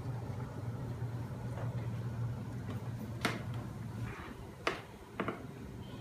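Homemade magnet motor machine running, its flywheel and linkage turning with a steady low hum. Three sharp clicks come about three, four and a half and five seconds in, and the hum drops about four seconds in.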